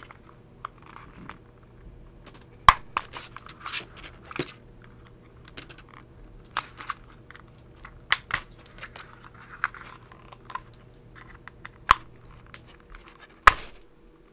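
A small screwdriver prying open the plastic case of an AC LED driver: irregular scraping and sharp plastic clicks, a few of them loud.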